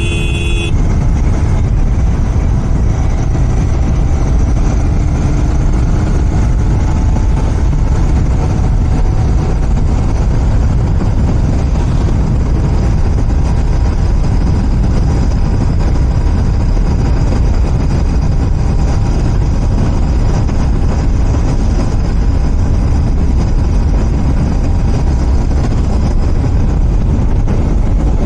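Royal Enfield Continental GT 650's 648 cc parallel-twin engine running through its stock exhaust at a steady cruise, heavily mixed with wind rumble on the microphone. A brief high tone sounds at the very start.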